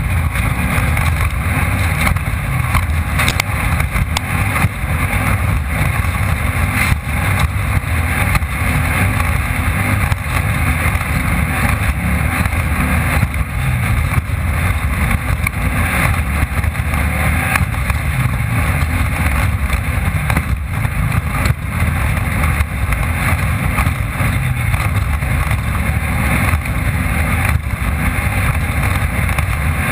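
Off-road race car running hard at speed, its engine noise blended with wind and chassis rattle as picked up by a camera mounted on the car. The sound stays loud and steady throughout.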